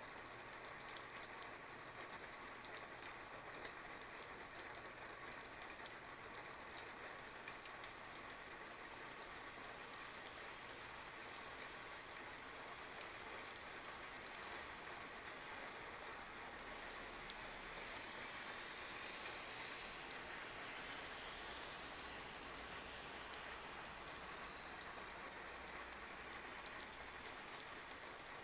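Steady rain falling on wet pavement and ground, with scattered drops ticking close by. The hiss swells briefly about twenty seconds in.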